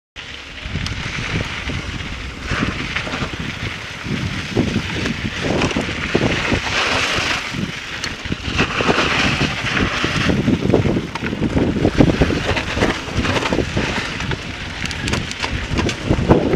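Wind buffeting an action camera's microphone over the rumble and crunch of bike tyres on a gravel trail, with frequent knocks and rattles from bumps. It grows louder as the bike picks up speed downhill.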